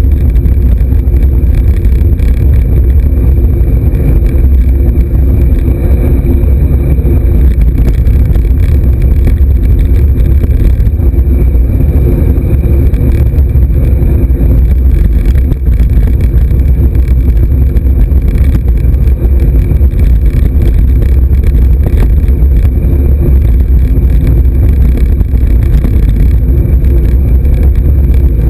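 Steady, loud wind rumble buffeting the microphone of a camera riding on a moving road bike.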